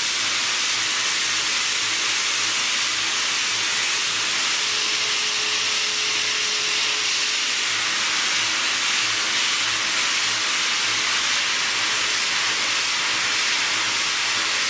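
CNC machining centre milling with a solid carbide end mill under high-feed roughing: a steady, even hiss with a faint low pulsing underneath.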